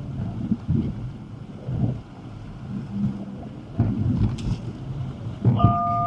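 Fast creek water surging and sloshing against a vehicle fording with the water up at its hood, over an uneven low rumble with a few dull knocks. Near the end comes a short electronic beep in two steady tones.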